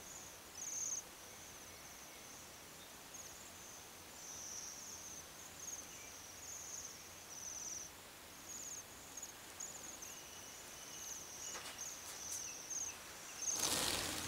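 A flock of Bohemian waxwings giving their high, thin trilled calls over and over as they feed. Near the end comes a loud rush of wings as the flock takes off together.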